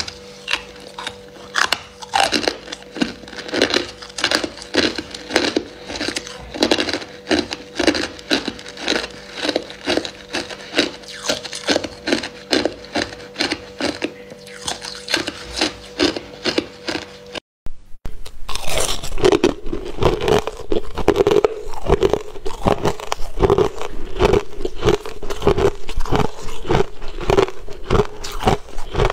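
Hard ice cubes being bitten and chewed close to the microphone: a steady run of crunches, about two a second. After a brief break about 17 s in, the crunching of crushed ice goes on.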